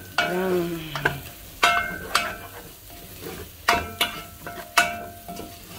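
Garlic and aromatics sizzling in oil in a non-stick cooking pot while a spoon stirs them, knocking against the pot in a series of sharp, briefly ringing clinks. They are being fried until golden brown.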